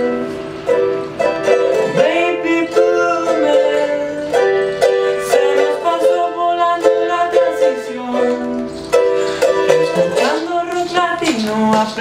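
Ukulele strummed and picked under a man's voice singing a wordless melody, with a few sliding notes.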